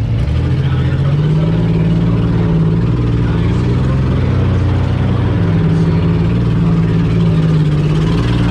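Demolition derby car's engine running loud, heard from inside the car, its pitch rising and falling as the throttle is worked, with no crashes.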